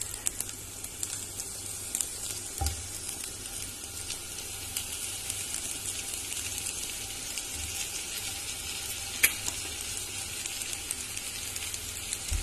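Ghee sizzling and crackling steadily in a frying pan as marinated paneer tikka skewers are laid in to fry. A dull knock comes about three seconds in, and a sharp click about nine seconds in.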